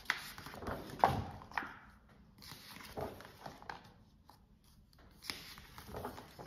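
Pages of a large picture book being turned by hand on a wooden table: paper rustling and flapping in several separate bursts, with soft knocks as pages and cover settle, the sharpest a knock about a second in.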